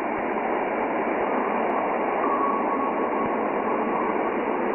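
Steady rushing hiss, with a faint thin tone for about two seconds in the middle: the Huygens probe's recording of its descent to Titan, presented as slow winds moving through Titan's thick nitrogen-rich atmosphere.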